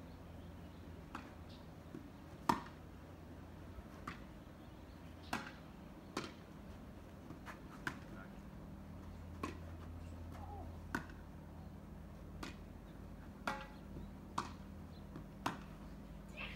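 Ball being struck back and forth in a doubles rally: sharp separate hits roughly every second or so, the loudest about two and a half seconds in, over a steady low hum.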